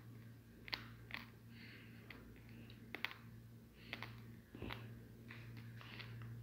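Faint scattered clicks and taps, irregularly spaced, over a steady low hum in a quiet room.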